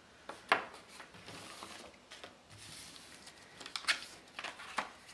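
Sheets of watercolour paper rustling and sliding on a wooden tabletop, with a few sharp taps and clicks as the cards and a paper cut-out on a wooden skewer are handled. The loudest tap comes about half a second in, and two more come near the end.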